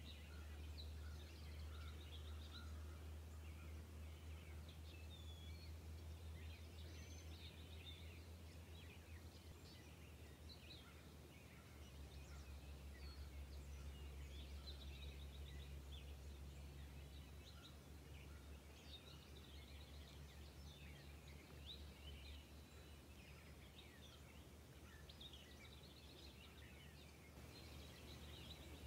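Faint outdoor ambience: small birds twittering over a low steady hum.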